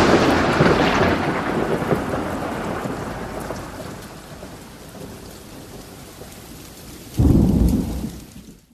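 Thunderstorm sound effect over a logo intro: a loud crash of thunder with a rain-like hiss that slowly fades. A second low rumble of thunder breaks about seven seconds in and dies away.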